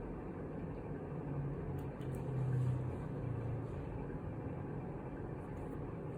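A man drinking water in swallows, with a low throaty sound from about a second in to nearly four seconds in, over a steady fan-like room hum.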